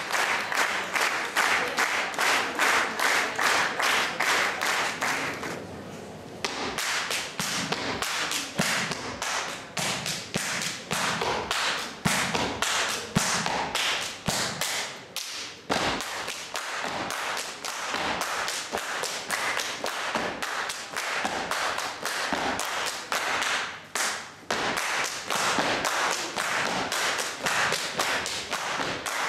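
Audience applause for the first five seconds or so. Then a men's Hungarian boot dance: a fast, uneven run of palm slaps on leather boots and boot stamps on a wooden parquet floor, with no music.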